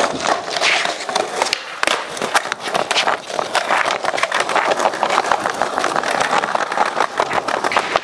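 Skateboard wheels rolling over concrete paving slabs: a steady rough rolling noise, broken throughout by many sharp clicks and clacks.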